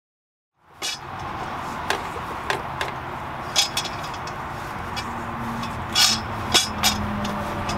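Silence, then kitchen handling sounds begin abruptly about a second in: scattered sharp knocks and clinks of a metal pot, bowl and utensils over a steady background noise.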